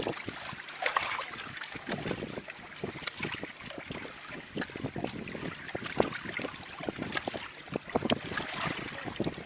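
Wind gusting over the microphone, with choppy water splashing and lapping in many short, irregular slaps.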